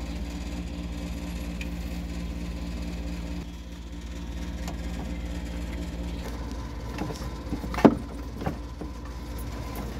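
Steady low engine-like hum that shifts in pitch partway through, with a few light clicks and one sharp knock about eight seconds in.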